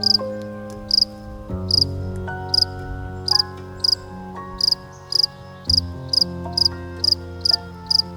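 Cricket chirping in a steady rhythm, a short high chirp a little more than once a second, over soft sustained background music.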